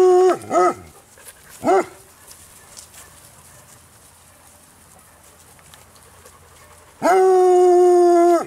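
A hound howling: the end of a long steady howl, then two short rising-and-falling calls in the first two seconds. After a quiet stretch, a second long steady howl of about a second and a half comes near the end.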